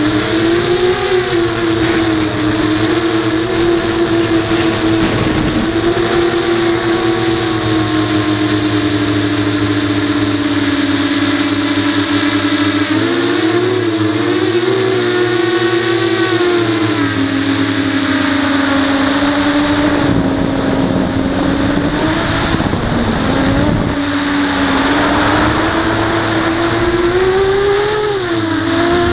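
Brushless motors and 5-inch propellers of an FPV quadcopter, heard from the onboard camera: a steady whine whose pitch bends up and down with the throttle, wavering about 13 seconds in and again near the end.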